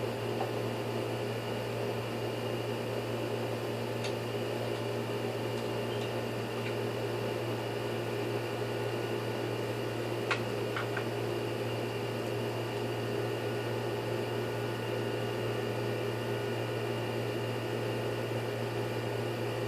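Steady electric motor hum, with a few faint clicks about four and ten seconds in.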